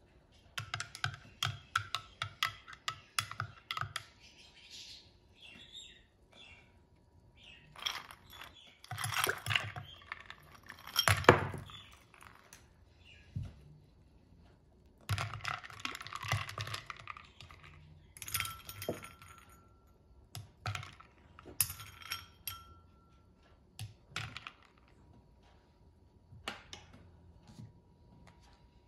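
Ice cubes clinking and knocking against a drinking glass as they are put into the coffee, in several clusters of clinks, the loudest about eleven seconds in.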